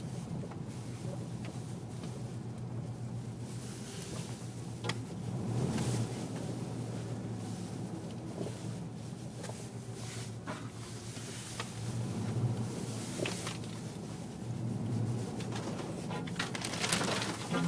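Car engine running, heard from inside the cabin as a steady low hum that swells a few times as the car creeps forward. Occasional short clicks and knocks come through, more of them near the end.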